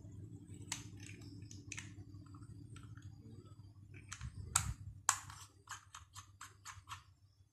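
Small sharp clicks and taps of a screwdriver and plastic plug parts being handled while a wire is fastened into a plug terminal, ending in a quick even run of about six clicks, over a faint steady low hum.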